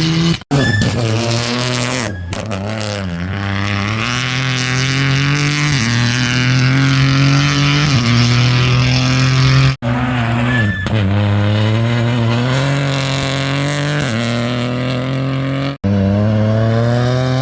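Rally car engines accelerating hard, revs climbing and dropping with the gear changes, in short clips broken by abrupt cuts, three times.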